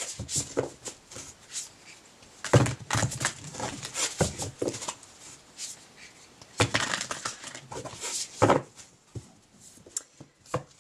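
A deck of oracle cards being shuffled and handled by hand: irregular papery rustles and taps in short bursts with brief pauses between them, as a day card is drawn.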